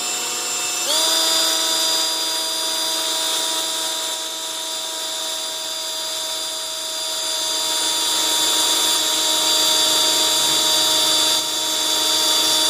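Milwaukee cordless drill running with a steady whine as a quarter-inch bit bores through the metal skeg guard and the outboard's skeg. It picks up speed about a second in and then holds steady under load.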